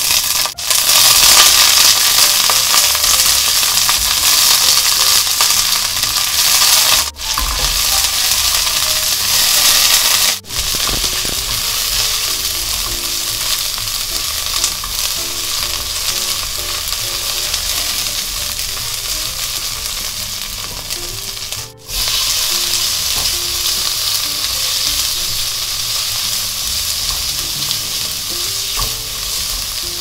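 Chopped garlic and fresh bird's eye chillies sizzling in hot oil in a frying pan, stirred with a spatula, with peeled shrimp frying in the pan by the end. The steady sizzle drops out briefly four times.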